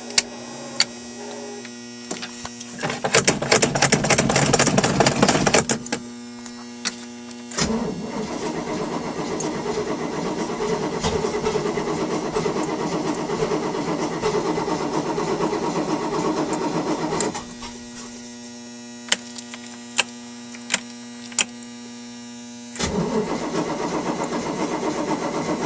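Boat engine being cranked over by its starter without catching, jump-started off a battery the owner says is failing. It cranks in a short burst about three seconds in, again for about ten seconds, and starts again near the end. A steady electrical hum runs underneath.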